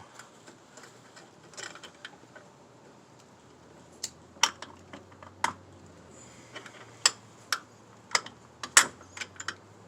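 Irregular sharp metallic clicks and clinks of hand work on a brake master cylinder mounting, as parts and a nut are fitted onto the studs. They come about a dozen times, unevenly spaced, starting about four seconds in.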